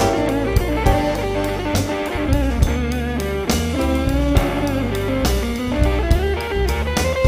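Blues-rock instrumental: an electric guitar playing a lead line with bent notes over bass and drums, with no singing.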